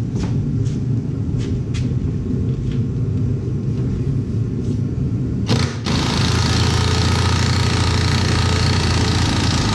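A vehicle's engine running steadily with a low hum. A little over five seconds in the sound breaks off sharply and comes back louder, with a rushing hiss over the engine.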